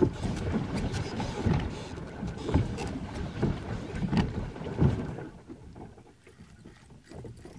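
Plastic pedal boat being pedalled as it backs up and turns, its paddle wheel churning and splashing the water in uneven strokes about once a second. The pedalling stops about five seconds in, leaving only faint lapping.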